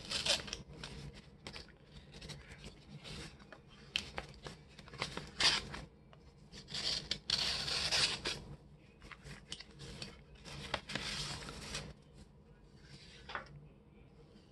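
Paper rustling, rubbing and scraping in irregular bursts as a greeting card is handled and opened out of its envelope, the longest stretch about halfway through, with a small click near the end.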